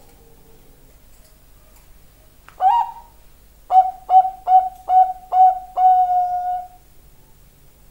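Bangkok-line zebra dove (perkutut) cooing its song phrase. A single rising opening note is followed, after a short pause, by five short clipped notes in quick, even succession and a final longer held note.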